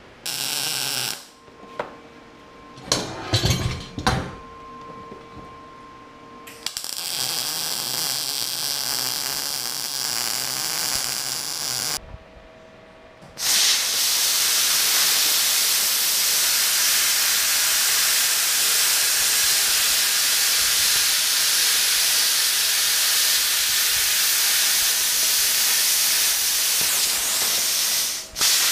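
Hand-held plasma cutter slicing steel plate: a loud, steady hiss of the arc and air that stops for a moment about twelve seconds in and again just before the end. A few sharp knocks come in the first seconds.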